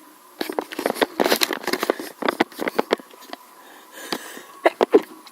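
A run of quick, short sneezes and sniffs, then a few more sharp sneezes near the end.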